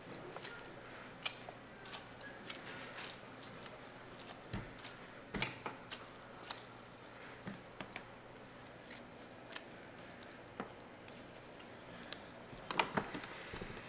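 Gloved hands pressing soft cookie dough and setting the pieces down on a parchment-lined metal baking tray: scattered soft taps and squishes, with a short run of louder taps near the end.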